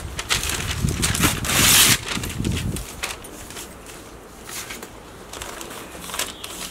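Sheets of newspaper rustling and crinkling as they are handled, folded and pressed down, loudest about one and a half to two seconds in, then quieter, scattered crackles.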